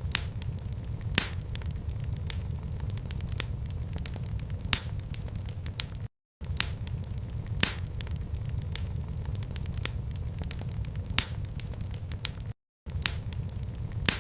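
Wood fire in a fireplace crackling, with scattered sharp pops over a low steady rumble. The sound cuts out completely for a moment twice, about six and twelve and a half seconds in.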